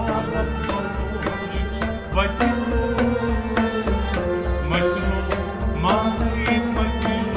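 Kashmiri Sufi kalam: a man singing with sliding, held notes over a harmonium's sustained chords, with a drum keeping a steady beat underneath.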